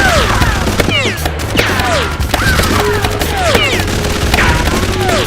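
Sustained rapid gunfire, a dense stream of shots over a low rumble, with about two falling whines a second laid over it.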